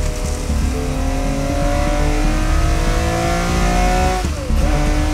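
Air-cooled flat-six engine of a 1968 Porsche 911 race car heard from inside the cockpit, pulling hard at full throttle. Its revs climb steadily to over 7,000 rpm, then an upshift about four seconds in drops the pitch suddenly.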